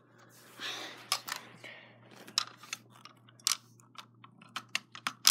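Handling noise from fitting a sling to an airsoft rifle: an irregular run of sharp clicks and small knocks, with a brief rustle about a second in.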